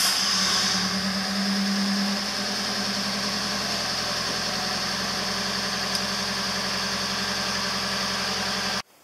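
Camper van's engine idling just after being started, a little louder for the first couple of seconds before settling to a steady idle; it cuts off suddenly near the end.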